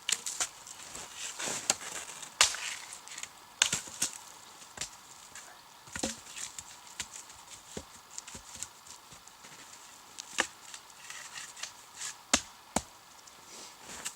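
A hatchet chopping wood: a dozen or so sharp, irregular knocks, one to two seconds apart.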